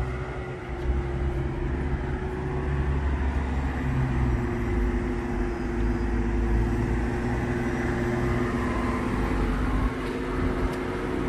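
A vehicle engine idling: a steady low rumble with a constant hum.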